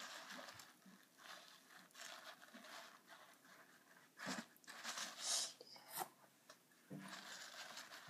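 Paper towel crinkling and rubbing against a catfish's skin as it is wiped clean of slime: faint short rustles and scrapes, a few louder ones about halfway through.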